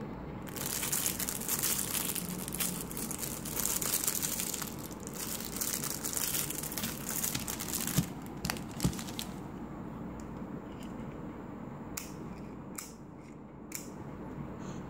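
Thin clear plastic sleeve crinkling and tearing as it is pulled off a pen: dense crackling for the first several seconds, then sparser handling with two sharp taps a little past the middle.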